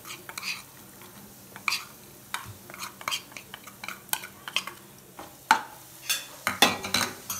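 A spoon scraping and clinking against a non-stick kadai as dabeli masala powder is tipped into hot oil and stirred in: a string of short taps and scrapes, busier and louder over the last couple of seconds.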